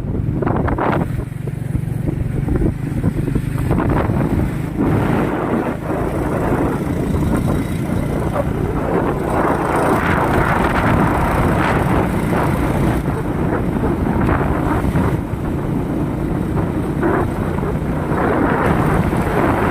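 A vehicle running steadily, with wind buffeting the microphone.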